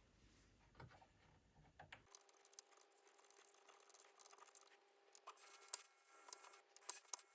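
Near silence with faint scattered clicks and light taps. From about two seconds in, a faint steady hum runs underneath.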